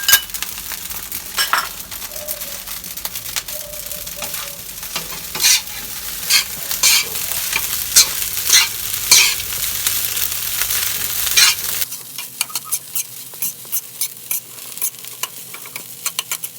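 Rice frying in a pan with salted fish, sizzling while a spatula stirs and scrapes it in strokes about a second apart. About twelve seconds in the sizzle thins out, leaving quicker, lighter clicks and scrapes.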